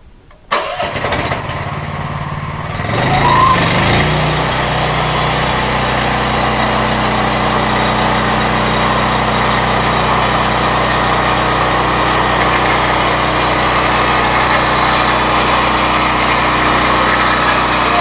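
Small gasoline engine of a portable band sawmill starting about half a second in and idling briefly. Around three seconds in it revs up to full speed, then runs steadily and loud.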